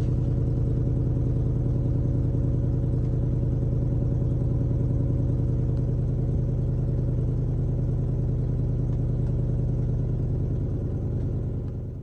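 Chrysler 300's 3.5-litre V6 idling steadily with a fine, even pulse. The engine has a multiple-cylinder misfire (code P0300), with cylinder 3's coil reading abnormally, caused by badly worn spark plugs.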